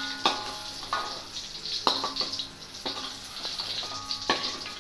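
Hot oil sizzling faintly in an iron wok as a metal spoon scoops out fried mock-chicken pieces, knocking against the pan about five times with a short metallic ring.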